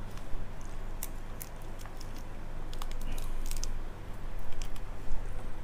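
Scattered crisp clicks and crackles of fingers prying apart the hard shell and wings of a giant water bug, thickest in the second half.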